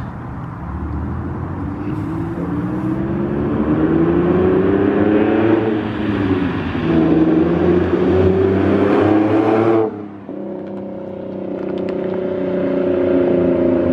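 Nissan 370Z's 3.7-litre V6 through a Motordyne Shockwave exhaust, accelerating as it passes by: the note climbs, dips at a gearshift about six seconds in, and climbs again. Near ten seconds the sound drops off sharply and settles into a steadier note.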